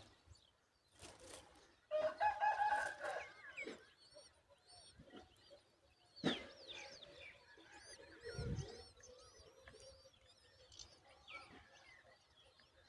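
Birds calling: a loud, harsh pitched call lasting about a second starting about two seconds in, then many short high chirps. A sharp knock comes about six seconds in and a low thump about eight seconds in.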